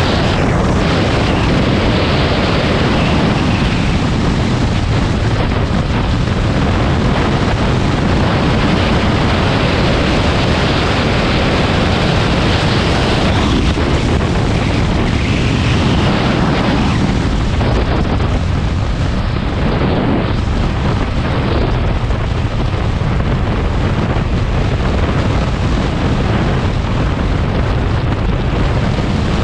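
Loud, steady rushing noise of wind buffeting the microphone.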